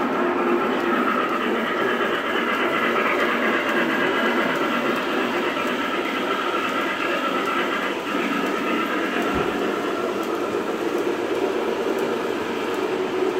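O-gauge model train running across a trestle: a steady rolling rumble and whir of metal wheels on the track as the heavyweight passenger cars pass.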